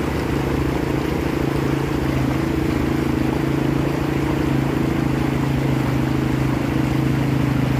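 Quad ATV engine running steadily as the machine drives through a shallow, rocky river, its pitch rising slightly about two seconds in. The rush of the fast-flowing stream is heard with it.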